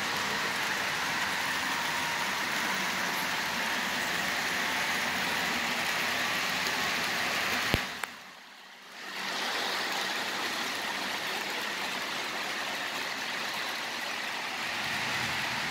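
Steady hum and hiss of an HO-scale Stewart Hobbies diesel locomotive running on a model railroad layout. A single sharp click comes about eight seconds in, then the sound drops away for about a second before returning.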